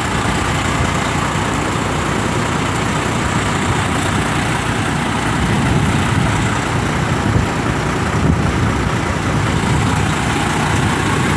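Diesel engine of a Freightliner semi tractor idling steadily close by.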